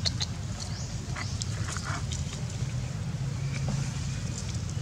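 Baby macaque giving short high squeaks, with scattered crackling and clicking from dry leaves and a paper juice carton being handled, over a steady low hum.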